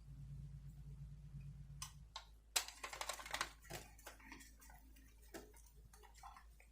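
Small sharp clicks and taps of hands working the plastic and metal parts of a die-cast model car as it is put back together. A low hum runs underneath and stops about two seconds in.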